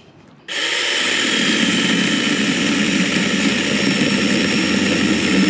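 Cordless Tietoc mini chainsaw with a 6-inch bar starting up about half a second in and running steadily as its chain cuts through a mesquite branch, with a faint high motor whine over the cutting noise.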